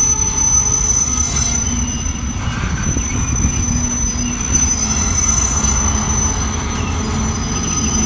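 CSX freight train rolling slowly past, its cars making a steady low rumble with a thin, high-pitched squeal held throughout.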